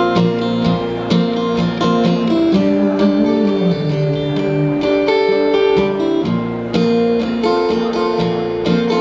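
Live band playing an instrumental passage between sung verses: guitars strumming and picking over bass, without vocals.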